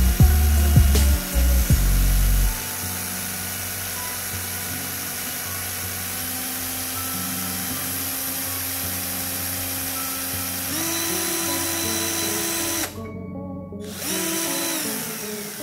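Ryu RCI20V cordless impact drill running free with no bit, its motor and gearbox giving a steady whine whose speed follows how far the variable-speed trigger is pressed. It goes higher and louder about eleven seconds in, cuts out briefly around thirteen seconds, then spins up again and winds down near the end.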